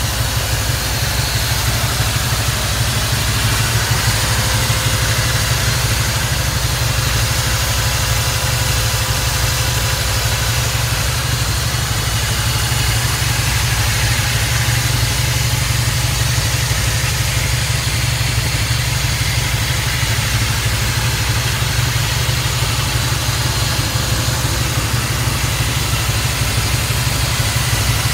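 The 1956 Chevy truck's V8 engine, which the seller believes is a Chevy 350, idling steadily with an even, unchanging note.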